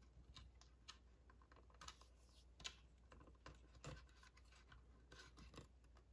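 Near silence, broken by faint, scattered small ticks and scratches: fingers working a nylon cord knot tight against the bone of a bear skull.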